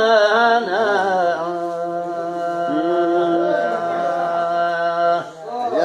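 A man's voice singing a traditional Arabic folk song. He sings the last word of a line, then holds one long steady note from about a second and a half in until near the end.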